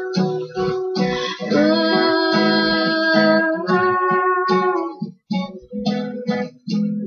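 Acoustic guitar strummed in a steady rhythm, with a long held sung note from about a second and a half in to about five seconds in.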